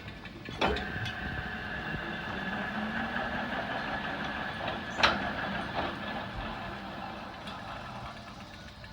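Lathe running steadily, turning a crankshaft for polishing, with a held whine. There is a sharp knock about half a second in and another, the loudest, about five seconds in.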